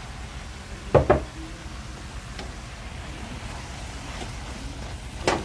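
Plastic spatula knocking against a wok while grated turnip is stir-fried: two quick knocks about a second in and another near the end, over a faint frying hiss.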